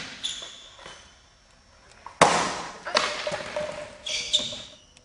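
A skateboard clacking against a concrete floor: a few sharp knocks of the board landing and tumbling after a bail, the loudest about two seconds in, each with a short echo.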